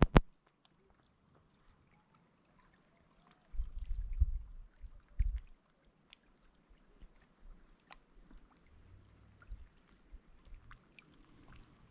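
Kayak paddling: faint water drips and light splashes from the paddle, with a sharp knock right at the start and a low rumble on the microphone from about three and a half to five and a half seconds in.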